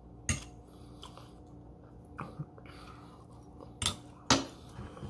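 Metal fork clinking against a ceramic plate a few times while picking up food. The loudest clink comes a little after four seconds in.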